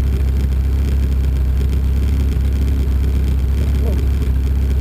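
Lotus 61 Formula Ford race car at speed, a loud, steady low engine rumble that holds an even pitch throughout.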